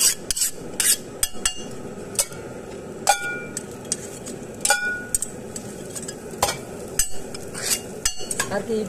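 Metal spatula scraping and tapping on a large dosa griddle (tawa) while a dosa is worked, a string of sharp scrapes and clicks, two of them ringing clinks about three and five seconds in, over a steady hiss.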